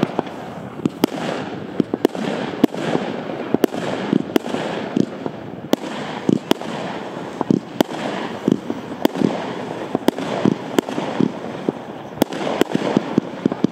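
Wolff 'Cool Beauty' category F2 firework battery firing its shots: sharp reports about one to two a second over a continuous rushing hiss.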